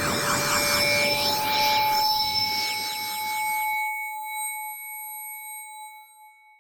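Synthesized horror sound effect: a dense swirl of rising and falling sweeping tones over a few held ringing tones. The sweeps stop about four seconds in, and the ringing tones fade away near the end.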